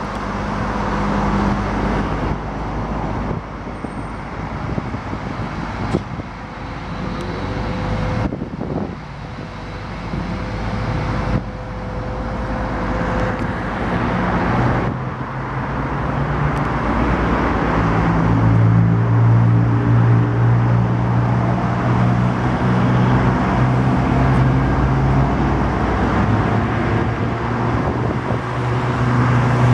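Mobile crane's diesel engine running steadily under load while hoisting, growing louder about halfway through.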